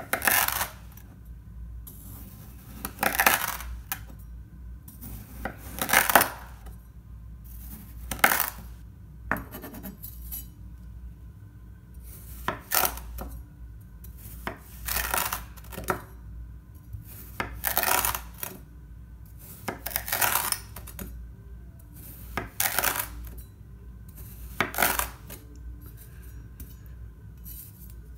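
Steel knife blade cutting down through packed kinetic sand: short crunchy slices, each ending as the blade meets the tabletop. A dozen or so cuts come at uneven intervals of about two to three seconds.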